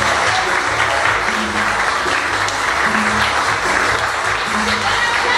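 Audience applauding over background music with a regular low bass beat.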